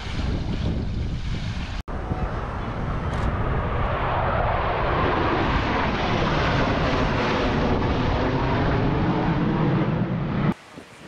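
Airplanes flying low overhead: a loud, steady rushing drone that swells over several seconds and cuts off suddenly near the end.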